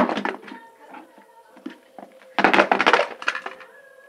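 A cardboard box being handled and its lid pulled off, with scraping and rustling that are loudest at the start and again about two and a half seconds in.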